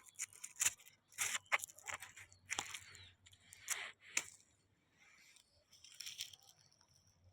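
Irregular crunching and tearing rustles: an uneven run of short snaps and crackles, easing off briefly about five seconds in.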